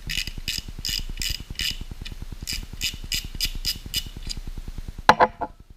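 Kyoto Tracker 4000 spinning fishing reel being worked by hand, giving a rapid run of sharp ratchet clicks about five a second that stop about four seconds in. A brief voice-like sound about five seconds in.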